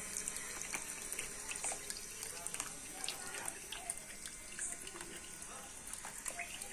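Faint water trickling and dripping in a small tabletop fountain, a steady splashing hiss with many small irregular drips.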